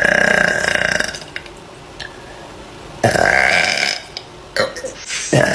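A woman's loud burps: two long belches about three seconds apart, each lasting about a second, with a third starting right at the end.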